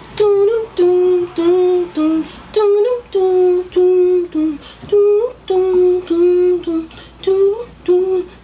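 A woman singing or humming a wordless tune: a run of short held notes on a few pitches, some sliding upward.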